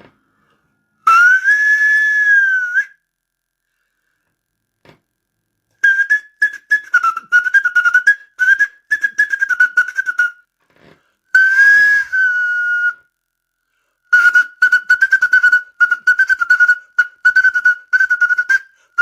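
A tune played on a homemade whistle-flute, a pseudo-instrument blown through a hole, in four short phrases: a single clear piping tone that wavers and glides a little in pitch, with rapid tonguing clicks on the notes.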